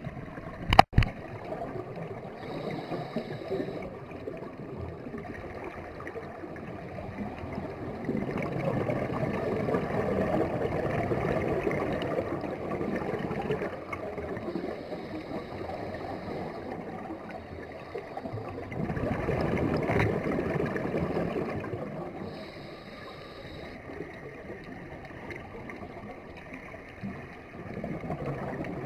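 Underwater scuba breathing: a diver's regulator and exhaled bubbles rushing in long swells, two of them louder, with a sharp click about a second in.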